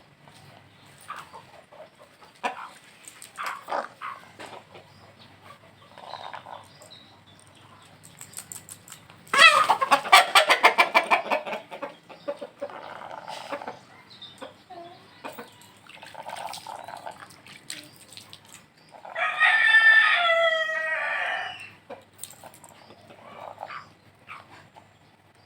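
Domestic chickens clucking, with two loud calls: a rapidly pulsing call about nine seconds in lasting some three seconds, and a rooster's crow of about two and a half seconds near twenty seconds in, falling in pitch at its end.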